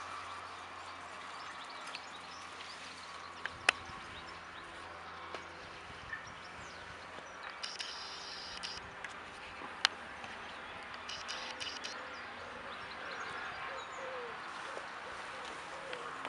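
Outdoor ambience with faint birdsong, two short bursts of high chirping, and two sharp clicks, one about four seconds in and one near ten seconds.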